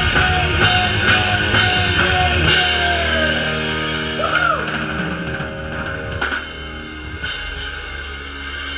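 Live rock band playing: drum kit, bass and electric guitars. The steady drum beat stops about two and a half seconds in, leaving held notes that fade out.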